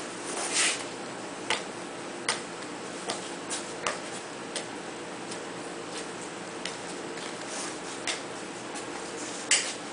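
Bench scraper scraping and tapping against a granite slab as a mass of fudge is pushed and shaped into a loaf: irregular short scrapes and clicks, roughly one every half second to a second, with a louder scrape near the end.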